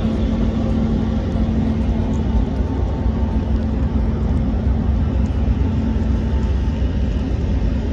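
A pilot boat's diesel engines running steadily at speed, a constant low drone.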